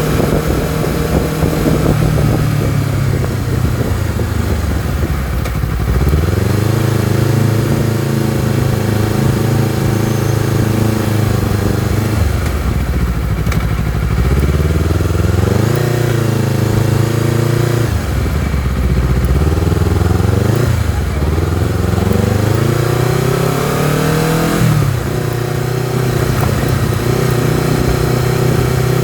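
Honda CBR250RR parallel-twin engine running under way, its revs climbing and falling several times as the throttle is opened and closed. The revs drop sharply near the end, then hold steady.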